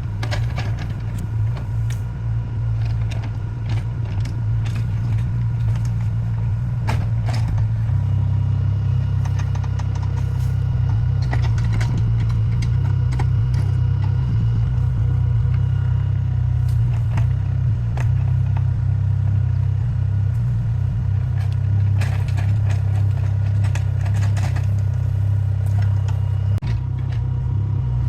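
Mini excavator's diesel engine running steadily, its note rising and staying higher from about eight seconds in as it works, with scattered clicks and clatter of crushed stone and the bucket.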